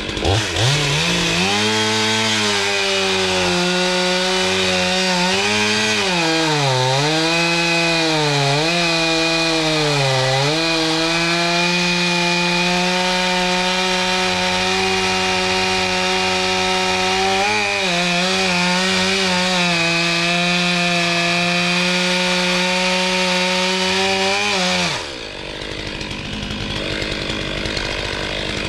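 Gas chainsaw running at full throttle through wood, its pitch dipping and recovering several times as the chain bogs under load in the cut. A few seconds before the end the throttle is released and the engine speed falls away to a much quieter level.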